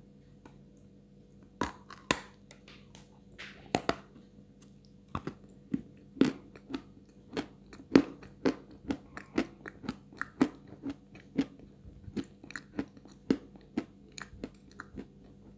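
Close-miked crunching and chewing of a dry, medium-hard block of white Astana 2 edible chalk. Irregular sharp crackles come about one or two a second, beginning about a second and a half in.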